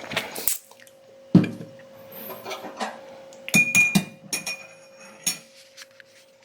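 A drinking glass being handled on a hard surface: a solid knock, then a quick cluster of clinks with a brief glassy ring, and a last knock.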